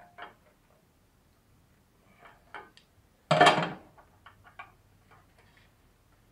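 Scattered light clicks and knocks, with one loud, short clatter lasting about half a second a little past the middle.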